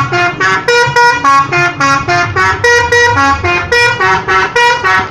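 Indonesian bus 'telolet' horn, a multi-tone musical air horn, playing a fast tune of short notes that jump between pitches, about four to five notes a second.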